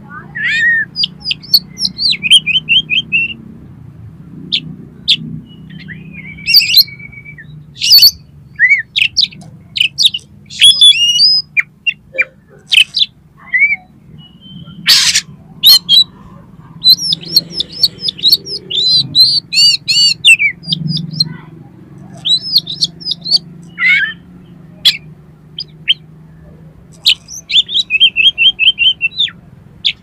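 Oriental magpie-robin singing loudly in a varied song of clear whistles, sharp single notes and fast runs of repeated notes, in phrases broken by short pauses.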